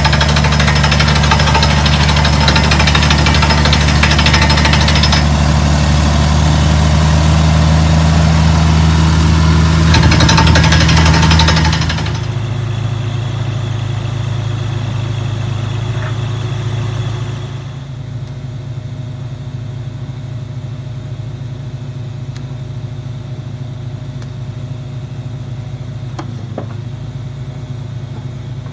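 Engine of a truck-mounted borewell drilling rig running steadily, with a loud hiss of compressed air blowing rock dust out of the bore. About twelve seconds in the hiss stops and the engine runs on more quietly, dropping again a few seconds later.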